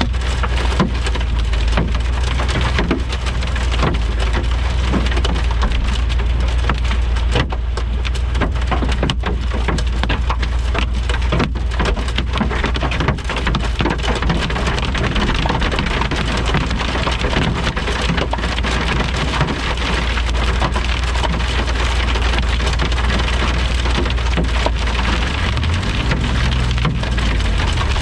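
Heavy rain beating down in a dense, constant patter of drops, over a steady deep rumble.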